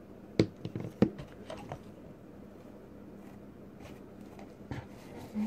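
Plastic skincare tubes being handled and lifted out of a cardboard box: two sharp clacks about half a second and a second in, then lighter taps and rustles, with a couple more soft knocks near the end.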